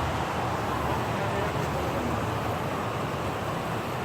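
Waterfall's steady rushing roar of falling water.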